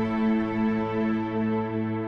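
Slow ambient music: a held low chord of sustained tones that swell gently.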